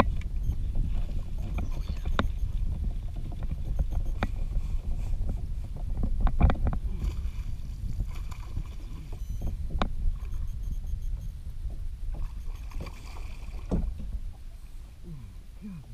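Fishing kayak on open water with a low steady rumble of wind and water, broken by a handful of sharp knocks and splashes while a hooked bass is fought from it; the strongest comes about six and a half seconds in.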